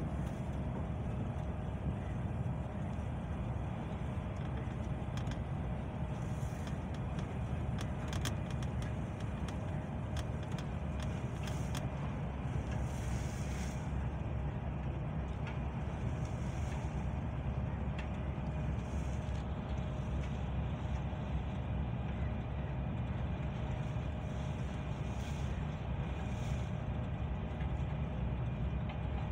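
Boat engine running steadily: an unbroken low rumble with a faint steady whine above it.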